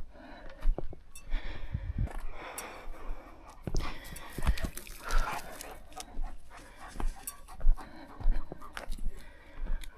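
A German shepherd panting, with footsteps thumping and crunching on dry ground.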